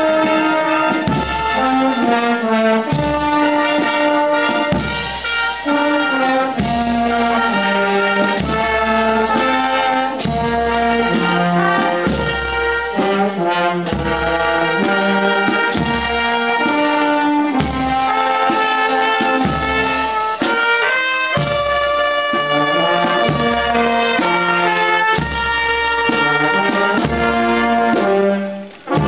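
Brass band playing in procession: a brass melody over a steady, regular bass beat.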